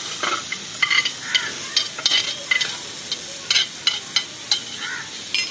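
Spiced eggplants frying in hot oil in a pan over a wood fire: a steady sizzle broken by irregular sharp crackles.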